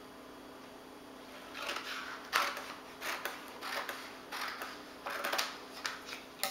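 Scissors cutting through a sheet of vinyl wrap film, with the plastic sheet crinkling as it is handled: a run of irregular snips and crackles starting about a second and a half in.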